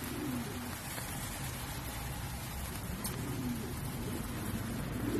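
Pigeons cooing several times from the crates, over a steady low hum and hiss.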